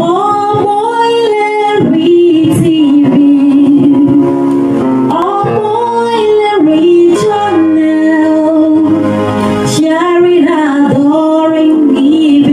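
Sung station jingle: a voice holds long notes that slide between pitches, in phrases a few seconds long, over instrumental backing.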